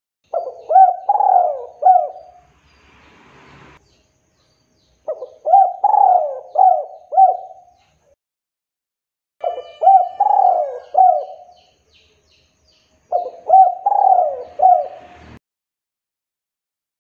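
Male spotted dove cooing: four phrases of several quick coos each, a few seconds apart.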